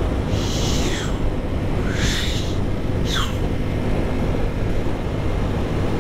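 A small motorcycle's engine runs at a steady cruising speed under heavy wind noise on the microphone. Three brief high sounds slide down in pitch: about half a second in, about two seconds in, and about three seconds in.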